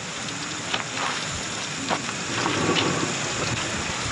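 Hot oil sizzling in a frying pan on a gas camp stove: a steady crackling hiss with scattered small pops.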